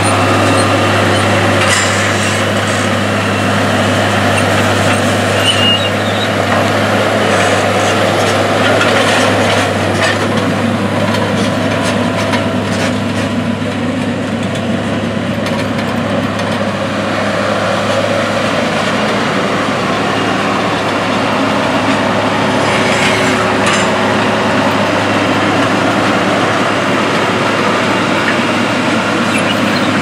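Case IH Puma 180 tractor's diesel engine running steadily under load, pulling a front-mounted crop roller and a Great Plains no-till grain drill through a standing cover crop.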